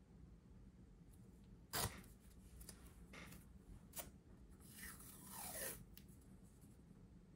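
Washi tape being pulled off its roll, a quiet ripping that falls in pitch for about a second a little past halfway; the roll is old and its adhesive is sticking to itself. A sharp tap comes earlier, about two seconds in, the loudest sound here.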